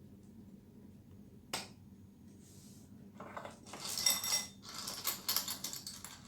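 Seashells being handled, a single click and then a run of hard clinking and rattling as shells knock against each other and the work surface, loudest a little past the middle.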